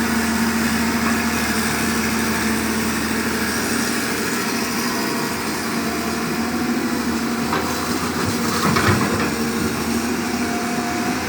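Diesel engine of a Hyundai Robex 210-7 pontoon excavator running steadily, with a few short knocks about eight to nine seconds in.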